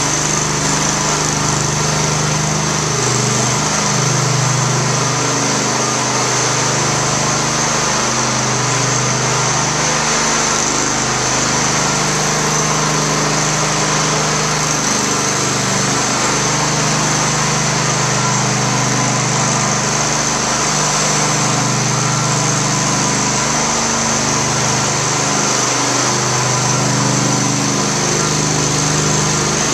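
Propane-powered floor burnisher running steadily as it polishes a vinyl tile floor: a small gas engine at a constant speed with the pad spinning on the floor, its pitch wavering slightly now and then.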